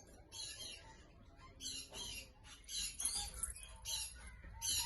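Violet rosy-faced (peach-faced) lovebird giving an irregular series of short, scratchy chirps, quiet and spaced from a quarter second to over a second apart.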